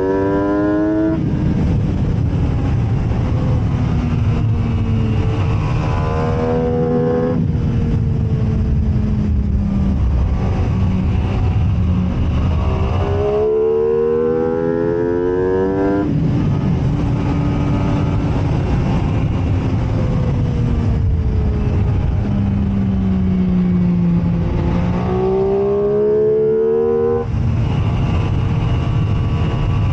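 MV Agusta F3 675 inline-three engine at racing speed. The revs climb steeply under acceleration and break off abruptly at each upshift, then fall in steps as it slows and downshifts. A constant rush of noise sits underneath.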